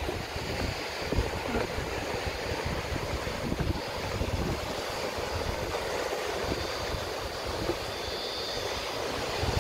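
Gusty wind buffeting the microphone with a low rumble, over the steady wash of ocean surf breaking on rocks.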